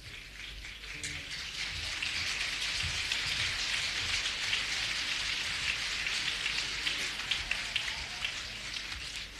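Theatre audience applauding, a dense patter of many hands that swells over the first couple of seconds and eases off near the end.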